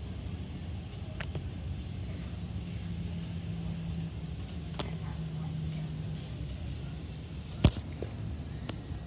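Low steady rumble of jet airliners, with a low hum that comes in for a few seconds in the middle. A few sharp clicks cut through it, the loudest about three-quarters of the way in.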